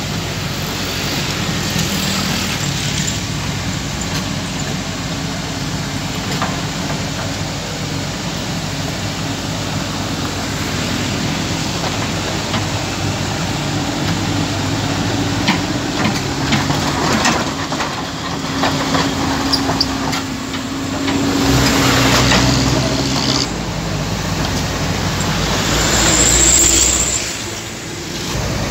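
Komatsu PC200 hydraulic excavator's diesel engine running under load as the machine crawls on its steel tracks, with scattered metallic clanks partway through. Two louder swells of engine noise stand out, the second near the end with a sharp high hiss.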